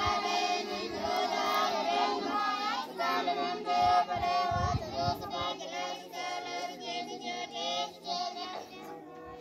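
A group of children singing together, a repetitive song in many voices, growing quieter toward the end.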